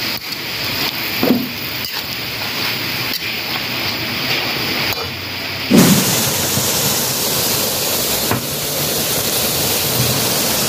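Kangkong (water spinach) sizzling and bubbling in a wok over a gas burner: a dense, steady crackling hiss. A dull thump comes about six seconds in.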